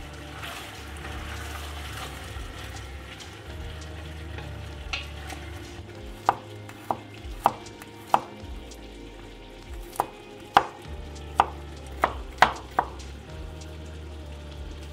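Chicken frying and being stirred with a wooden spoon in a large pot for the first few seconds, a steady sizzle. Then a chef's knife chopping garlic cloves on a wooden cutting board: about ten sharp knocks, irregularly spaced, from about six seconds in.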